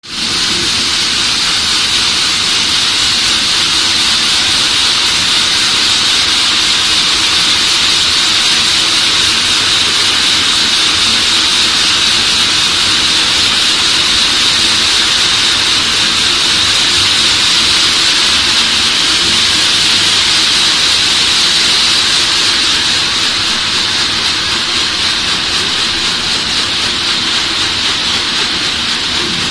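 Circular tumbler screen (vibrating sieve machine) running with a loud, steady hiss and a low hum underneath, as wet strips of material are shaken across its mesh.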